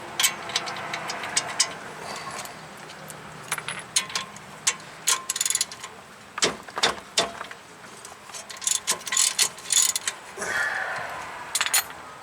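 Irregular metallic clicks and clinks of hand tools on the ball-joint stud, as the straightened cotter pin is worked out of the castle nut. Clicks come in quick clusters, with a short scrape near the end.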